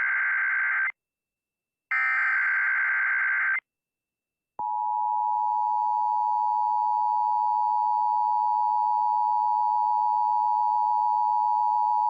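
Emergency Alert System SAME header data bursts on NOAA Weather Radio: the tail of one harsh, buzzing digital burst, then another lasting under two seconds about two seconds in. About four and a half seconds in, the steady single-pitch warning alarm tone starts and holds.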